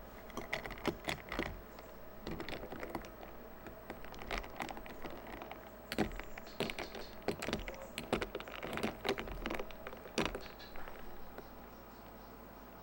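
A run of irregular light clicks and taps, as of small hard objects being handled, with a short lull about two seconds in; they die away about a second before the end.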